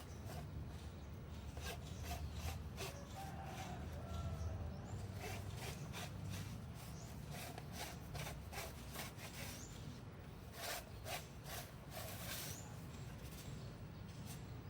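Irregular rubbing and scraping with many short clicks, from things being handled while a fishing-rod antenna mast is set up. A few brief rising chirps come in high above it.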